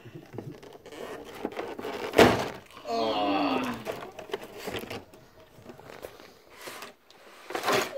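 A single loud thump about two seconds in as a boxed toy-car set is handled, followed by a short wordless vocal sound; a rustle of the packaging near the end.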